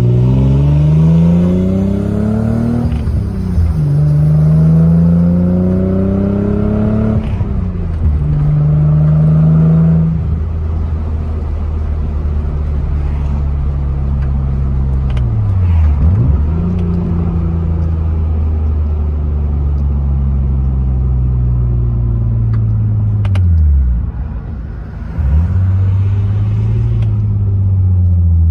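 Nissan 300ZX's 3.0-litre V6 heard from inside the cabin, pulling away through the gears: the revs climb and drop back twice, at upshifts about three and seven seconds in. It then settles into steady cruising under road noise, with brief sharp dips in revs in the middle and near the end.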